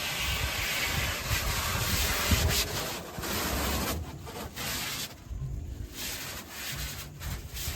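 Protective plastic film being peeled off a new polycarbonate windscreen sheet: a continuous rustling, rubbing tear, loudest for the first four seconds, then quieter and broken.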